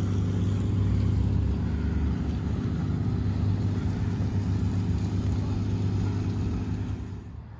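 Steady low engine drone with an even hum and its overtones, dropping away about seven seconds in.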